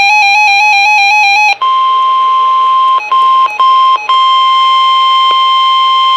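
Emergency alert attention tones. For about the first second and a half there is a buzzy, warbling tone that wavers between two close pitches. It then switches to a single steady high tone, the NOAA Weather Radio 1050 Hz warning alarm, which breaks off briefly three times around the middle.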